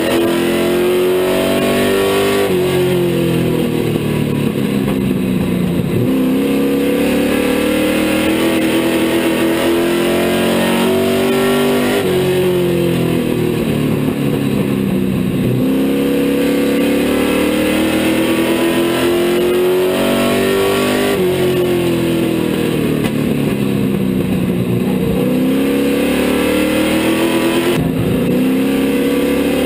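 Big street stock race car's engine heard from inside the cockpit, running hard lap after lap: its pitch climbs steadily along each straight, then drops as the throttle comes off for the turn and rises again, three times.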